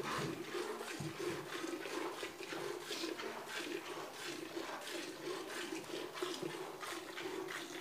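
A cow being milked by hand: streams of milk squirting into a container in a steady rhythm of about two squirts a second, over a steady hum.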